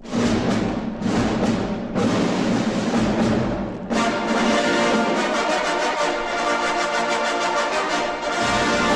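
Orchestral music with brass and timpani: strong hits at the start and about two and four seconds in, then held brass chords.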